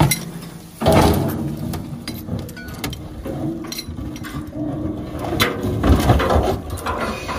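Heavy machinery running steadily, with metal clanks and knocks; a loud clatter about a second in and more sharp knocks near the end.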